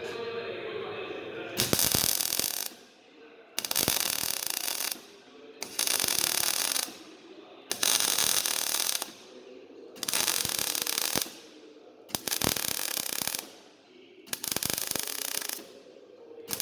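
MIG/MAG welder striking a series of short tack welds on steel sheet: about eight bursts of arc crackle, each about a second long, every two seconds or so.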